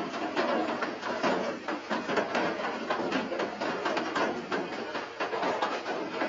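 Steady rain: a dense, irregular patter of drops hitting surfaces.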